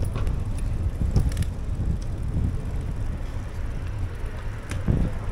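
Riding a bicycle on asphalt: low wind rumble on the microphone with road noise, and a few light clicks and rattles about a second in and again near the end.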